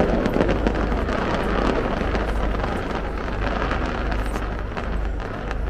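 Fireworks display: a continuous low rumble of bursts with many fine crackles over it, slowly fading.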